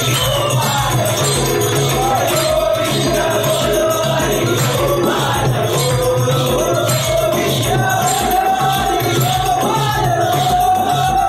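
Live Balya (Jakhadi) folk dance music: a lead voice with a chorus singing a wavering melody over a steady drum beat, with a jingling like the dancers' ankle bells.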